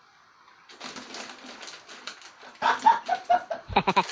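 Dry crackling of a crunchy packet snack for about two seconds, then laughter starting near the middle and building into loud, rhythmic ha-ha-ha bursts near the end.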